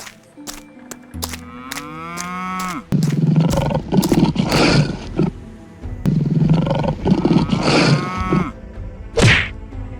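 Cartoon animal sound effects over music: a rising call, then two long, loud roars from a big cat or cattle, and a sharp swishing hit near the end.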